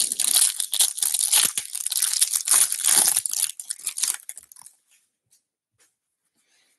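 Clear plastic wrapper being torn and crinkled off a stack of baseball cards: a dense crackling that stops about four and a half seconds in.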